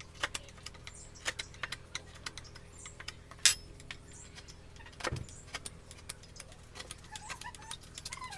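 Carving chisel being struck into wood: a string of sharp, irregular taps, with one louder strike about three and a half seconds in and a dull thump about five seconds in.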